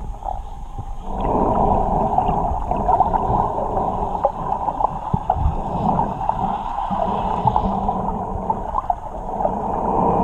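Muffled underwater water noise, with gurgling and a scatter of small clicks and knocks, heard through a camera held under the sea.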